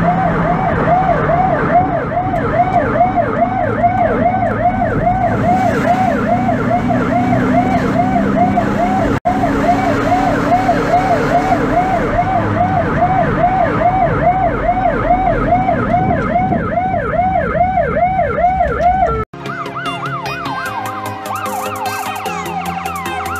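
Fire brush truck's electronic siren on a fast yelp, about three rising-and-falling wails a second, heard from inside the cab over engine and road noise. Near the end it cuts off abruptly and music takes over.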